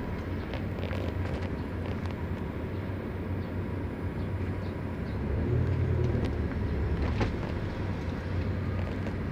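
Car cabin noise while driving: a steady low engine and road rumble that swells about five and a half seconds in. There is a brief click near the seven-second mark.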